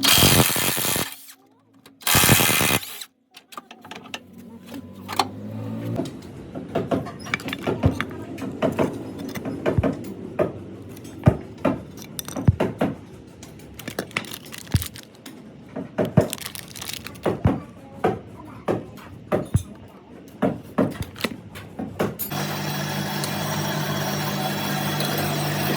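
Workshop hand tools knocking and clinking on metal in irregular strikes, after two short loud rushing bursts at the start. Near the end a steady engine hum sets in.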